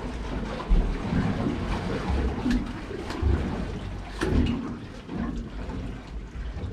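Wind buffeting the microphone in uneven low rumbles, over water slapping against the hull of an anchored boat, with a few sharp clicks and knocks of dive gear being handled.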